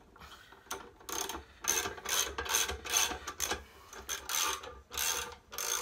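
Socket ratchet on a 22 mm socket winding up an unloaded motorcycle scissor box lift: a run of short ratcheting strokes, roughly two a second, as the scissor mechanism raises the top plate.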